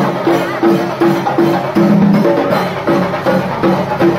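Music driven by a steady percussion beat, with a repeating low, note-by-note pattern at about three notes a second.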